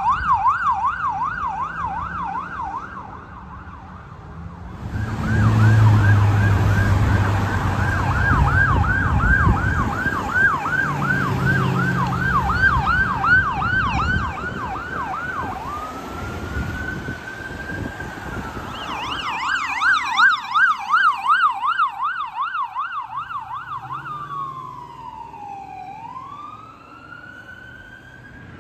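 Electronic emergency-vehicle sirens: a fast yelp, then a fire engine's yelp over the rumble of its engine, switching to a slow wail, back to the yelp, and ending on a wail that falls and rises again.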